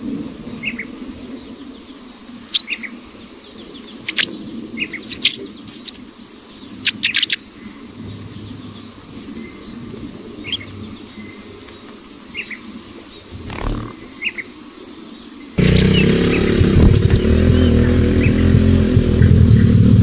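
Short bird chirps and calls over a steady, high-pitched insect trill. About fifteen seconds in, a louder low rumbling sound cuts in abruptly.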